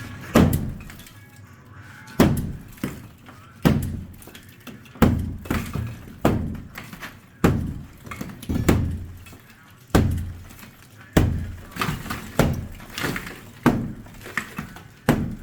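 A sledgehammer breaking out stone facing from behind a wood-burning stove: about a dozen heavy blows, roughly one every second and a bit, each with rock cracking and breaking.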